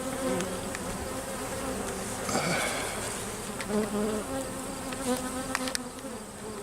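Honey bees buzzing around an opened hive in a steady, many-voiced hum, with a few short clicks about five and a half seconds in.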